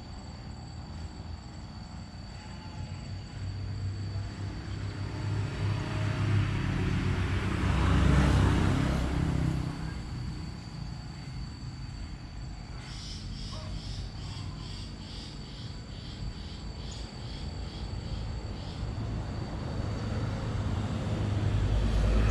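Outdoor rumble of a vehicle passing by, swelling to its loudest about eight seconds in and then fading, with a steady faint high whine underneath. A quick, high repeating pulsing comes in about halfway through and lasts several seconds.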